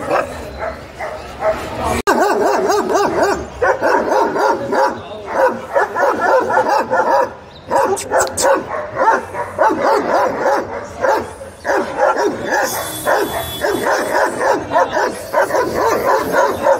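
A German shepherd and a second, black dog barking over and over in quick succession.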